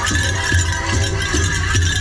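Powwow drum song for grass dancing: a big drum beaten in a steady beat of about two to three strokes a second, with voices singing over it.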